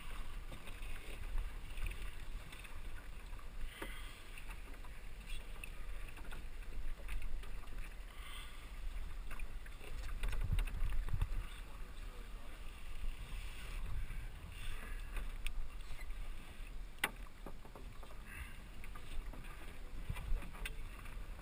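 Low rumble of wind and water around a small sailboat, with scattered light clicks of a line and deck fittings being handled at the bow, and one sharper click late on.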